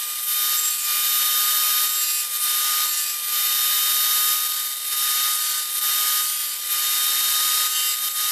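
Table saw running with a steady high whine while its blade cuts into a stick of oak in repeated passes, the cutting noise easing and swelling every second or so.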